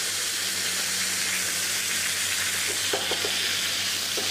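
Mahi-mahi fillets sizzling steadily as they sauté in olive oil in a frying pan, with a few light clicks about three seconds in.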